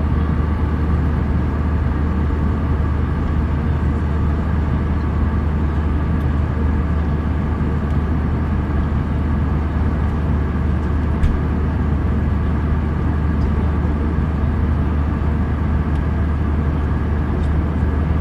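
Steady cabin noise of an Airbus A320-family airliner in cruise flight: a deep, even roar from the jet engines and the air rushing past the fuselage, with a faint steady whine above it.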